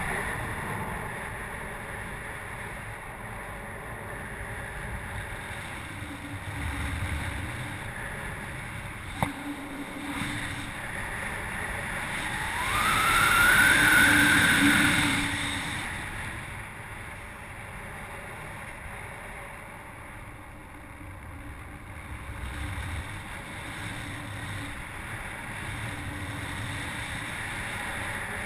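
Airflow rushing over an action camera's microphone on a paraglider in flight. About halfway through the wind noise swells, with a rising whistle, then settles again; there is a single sharp click about a third of the way in.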